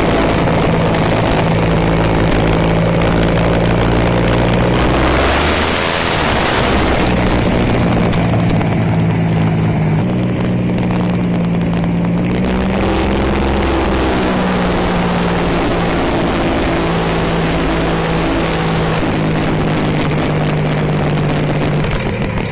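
Rolls-Royce aircraft engine of a custom motorcycle, running loud as the bike rides, its pitch rising and falling with the throttle several times.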